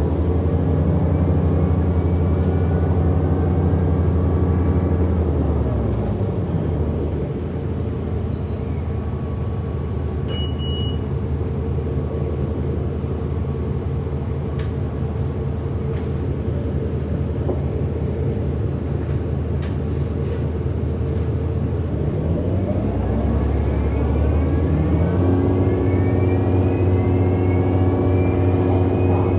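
2008 Orion NG hybrid-electric bus heard from inside, with its hybrid drive whining in a stack of tones over road rumble. The whine falls in pitch about six seconds in as the bus slows, stays low for a while, then climbs again from about 22 seconds as the bus picks up speed.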